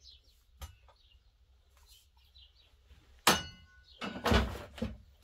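Gear being handled on the van's metal shelving: a sharp metallic clank with a brief ring about three seconds in, then about a second of scraping and rattling. Faint bird chirps in the first couple of seconds.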